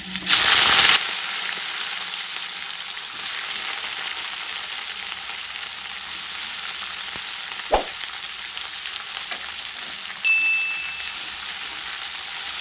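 Pieces of raw green banana peel dropped into hot oil in a karai. They hit with a loud burst of sizzling that settles into steady frying. There is a single sharp knock about eight seconds in and a brief high ring a little after ten seconds.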